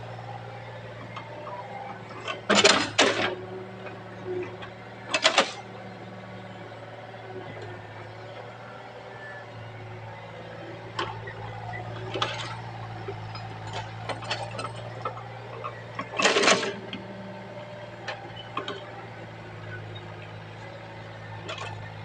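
Excavator diesel engine running steadily with a low hum, with loud sharp metallic clanks and scrapes from the machine at work, the loudest a cluster about three seconds in, one near five seconds and one about sixteen seconds in.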